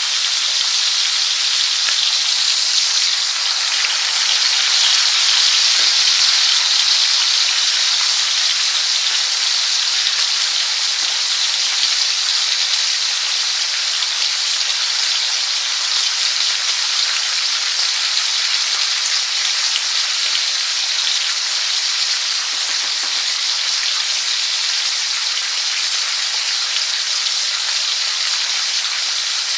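Food frying in a pan, a steady sizzle with no breaks.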